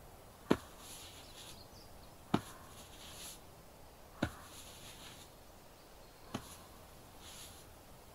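Finger-pressure (shiatsu) massage sounds close to the microphone: four soft thumps about two seconds apart, each a short, sharp press, with a quiet breath heard between them.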